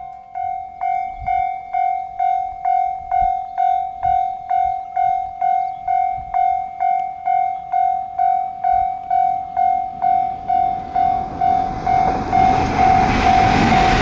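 Railway level-crossing warning bell ringing steadily at about two strokes a second. In the last few seconds it is joined by the growing rumble of a JR West 521 series electric train running over the crossing.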